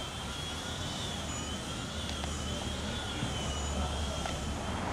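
Distant engine rumble, slowly growing louder, with a faint high whine that wavers gently in pitch.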